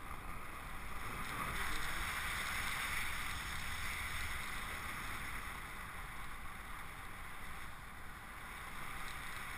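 Steady rush of airflow over a handheld camera during a tandem paraglider flight: even wind noise with a low rumble.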